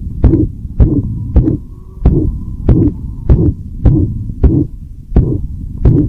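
A dog's heart with a murmur, heard through a stethoscope: about ten beats in six seconds (close to a hundred a minute), with noise filling the gaps between the beats.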